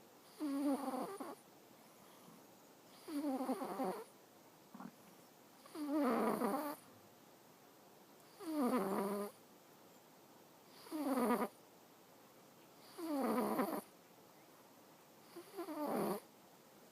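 A Singapura cat snoring in its sleep: seven snores, one about every two and a half seconds, each lasting under a second and falling in pitch.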